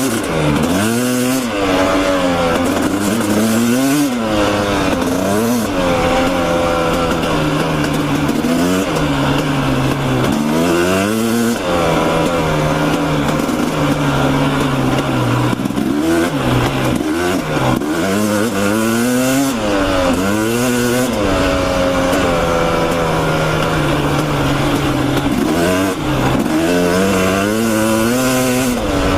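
Dirt bike engine revving up and dropping back again and again while riding, its pitch rising and falling every second or two with throttle and gear changes.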